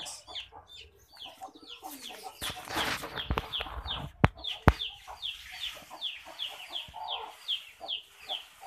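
Chickens peeping and clucking: short high falling peeps about three a second. Some rustling runs through a couple of seconds in, and two sharp knocks follow around four seconds in.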